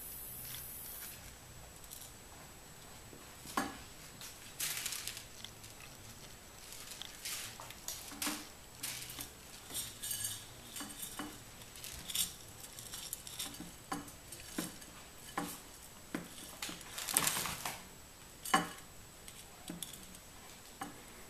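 Dry kibble clinking and rattling in a ceramic plate as a kitten digs the food out, in irregular clicks and scrapes with the loudest flurry a few seconds before the end.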